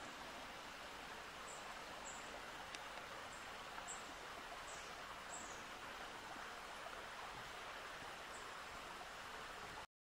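Steady outdoor ambience: an even hiss, like moving water or wind in foliage, with a few short, high bird chirps scattered through it. It cuts off suddenly just before the end.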